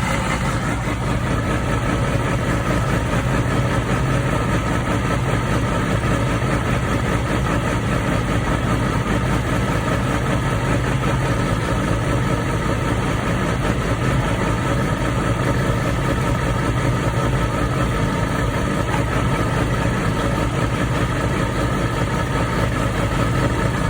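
2006 Yamaha YZF-R6 (RJ11) inline-four engine idling steadily. Its owner reports a sawing noise from the engine at cold start and after a short cool-down.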